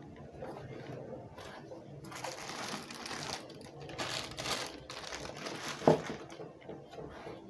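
Plastic bags and cardboard packaging rustling and crinkling as camera accessories are lifted out of their box, with one sharp knock about six seconds in as a bagged item is set down on the table.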